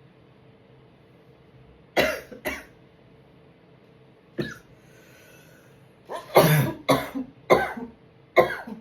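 A person coughing in fits: two coughs, a single one, then a rapid run of about five harsh coughs. This is a coughing fit set off by inhaling too much sneezing powder (chhinkni).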